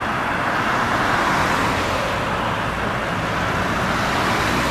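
Steady traffic noise of vehicles passing on a highway, an even rush of tyre and engine sound.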